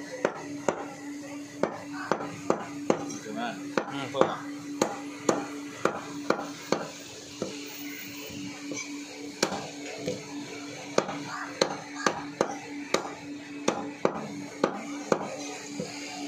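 Heavy cleaver chopping chicken pieces on a wooden chopping block: sharp knocks in quick, irregular succession, about two a second, with a short pause about halfway through. A steady hum and murmuring voices run underneath.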